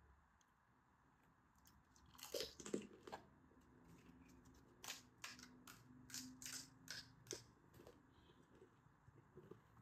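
Crisp, hollow pani puri shells cracking and crunching: a cluster of cracks about two seconds in, the loudest, then a run of sharp separate crunches a few seconds later, fainter toward the end.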